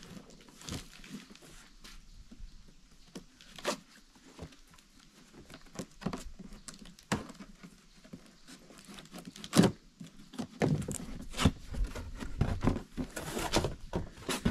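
A cardboard chainsaw box being opened and handled by hand: scattered knocks and rustling of cardboard, one sharp knock about two-thirds of the way in, and busier rustling and thumping near the end.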